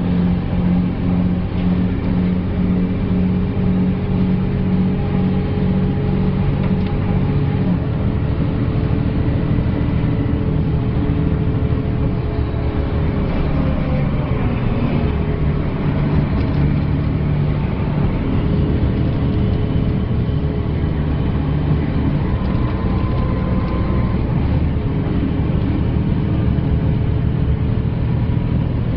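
Volvo B12B coach's diesel engine running under way, heard from inside the passenger cabin. Its note drops about a quarter of the way in and shifts again around halfway.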